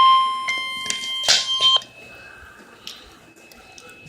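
Emergency alert warning tone of a severe thunderstorm warning broadcast: one steady high beep that drops somewhat in level, then cuts off abruptly a little under two seconds in, with a few clicks. Faint hiss follows.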